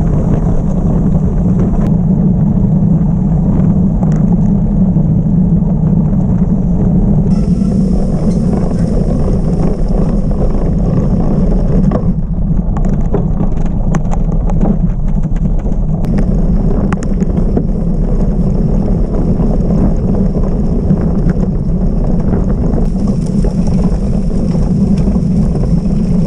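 Wind buffeting the microphone of a bike-mounted action camera, with gravel-bike tyres rolling over dirt and grass tracks at race speed. Scattered clicks and rattles from the rough surface come through about halfway through.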